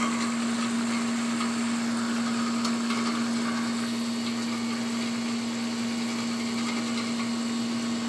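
Late-1960s Sears Coldspot 18,600 BTU window air conditioner running, with its newly fitted Fasco fan motor: a steady, unchanging hum over an even rush of air from the fan.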